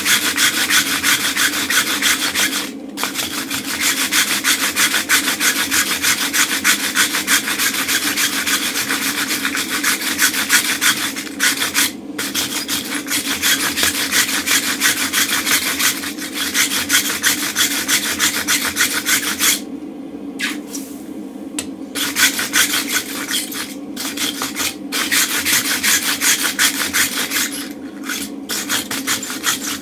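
Hand-held wire brush scrubbed hard back and forth over a red-hot mild steel bar on the anvil face, scouring off forge scale. Rapid scraping strokes with a few short breaks, the longest about two-thirds of the way in.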